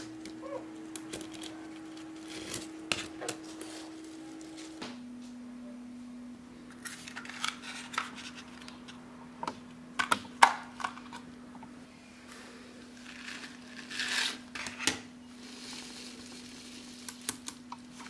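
Small neodymium magnetic balls clicking and clattering as they snap together, in scattered bursts of sharp clicks with short rattles; the loudest cluster comes about ten seconds in. A faint steady hum runs underneath.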